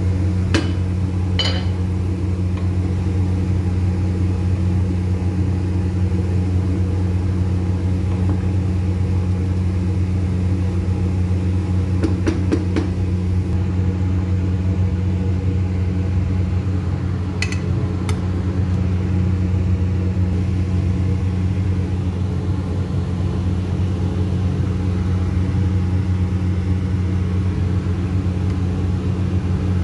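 A steady low hum runs unchanged throughout, with a few brief clinks of kitchen utensils: two in the first couple of seconds, a short cluster about twelve seconds in and one more a few seconds later.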